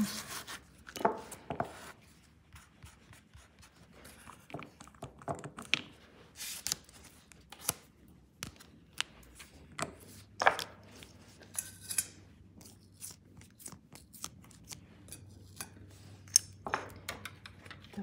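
Light rubbing and scraping with scattered small clicks and taps as nail-stamping tools are handled, beginning with a metal stamping plate being wiped with a lint-free pad.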